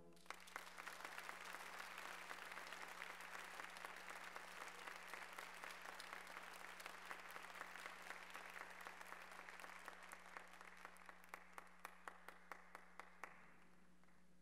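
Audience applauding, faint, thinning to a few scattered claps and stopping about a second before the end.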